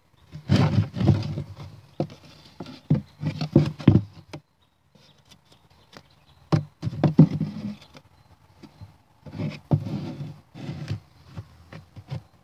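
Bursts of close rustling, scraping and clicking handling noise as fingers work a duct-tape flap against the edge of a plywood panel, in three clusters with short quiet gaps.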